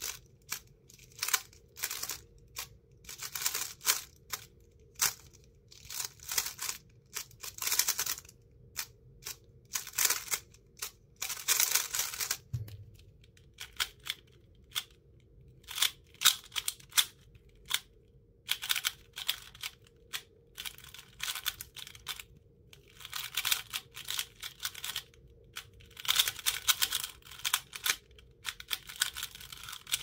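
Plastic 3x3 speed cubes being turned fast by hand: quick bursts of clicking, rasping layer turns separated by short pauses.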